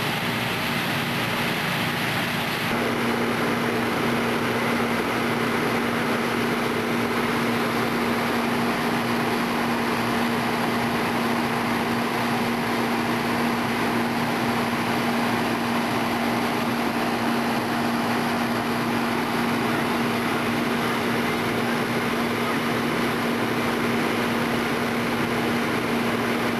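Fire-scene engine running steadily: a constant drone carrying a steady low hum, which grows stronger about three seconds in and then holds unchanged.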